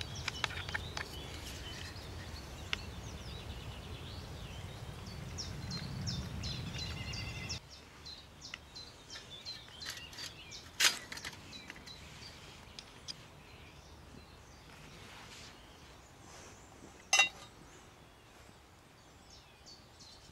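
Small birds chirping, over a low rumble that cuts off about seven seconds in. Two sharp clicks stand out, about eleven and seventeen seconds in, as a brass spirit burner and a cup are handled on a thin metal folding stove.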